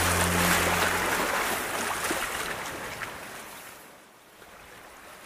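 The song's last held low notes die away about a second in, leaving a steady wash of flowing water and waves that fades out gradually.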